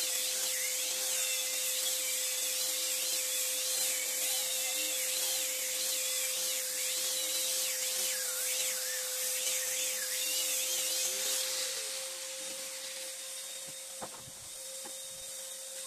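Handheld angle grinder with a sanding disc running on a teak board: a steady motor whine with a wavering, rising-and-falling tone as the disc is pushed back and forth across the wood. It gets quieter about twelve seconds in as the disc comes off the board.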